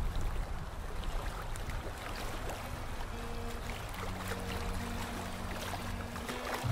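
Canal water trickling and lapping around a kayak being paddled, with small drips and splashes from the paddle. Faint background music comes in about halfway through.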